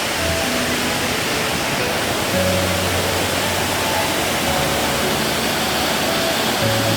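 Steady rushing noise of a waterfall, with background music over it: a slow melody of held notes and a deep bass line.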